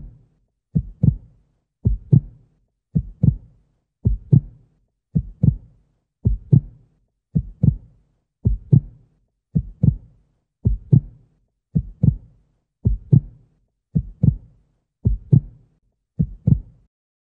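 Heartbeat sound effect: a steady double thump, lub-dub, repeating about once a second and stopping just before the end.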